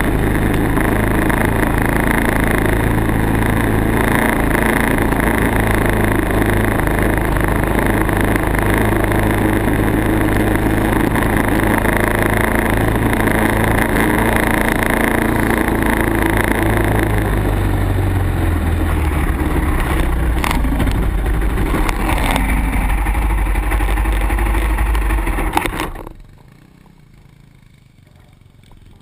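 Off-road vehicle engine running hard at speed, with rushing wind noise on the mounted camera. About 17 seconds in the engine note drops as it slows, and a little before the end the sound falls away sharply to quiet as the vehicle stops.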